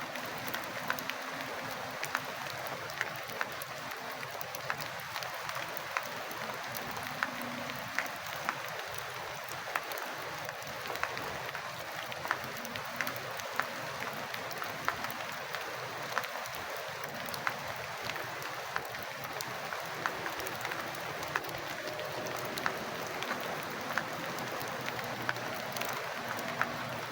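Steady rain, an even hiss of falling water with many sharp drop ticks scattered through it as drops strike hard surfaces.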